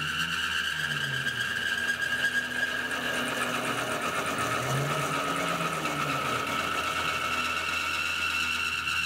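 Tormach PCNC 1100 CNC mill thread-milling a 1018 steel bar with a 60-degree single-form V cutter on the first pass. It gives a steady high-pitched whine and cutting squeal, with lower tones that rise and fall and the hiss of flood coolant.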